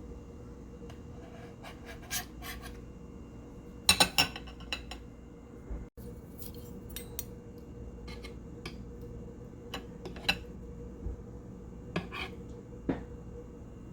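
Cutlery clinking and scraping against a plate while a soft pudding is cut and served: scattered light clicks, with a quick cluster of sharper clinks about four seconds in.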